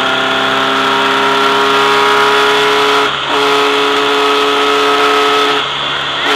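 Volkswagen race car's engine heard onboard, holding steady high revs under load, with a short break in the note about three seconds in that resumes at the same pitch, and a dip near the end.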